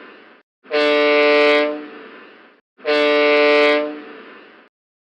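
A vessel's horn sounding short blasts of about a second each, the tail of one fading out at the start, then two more. Short blasts like these make up a manoeuvring and warning signal between vessels in sight of one another.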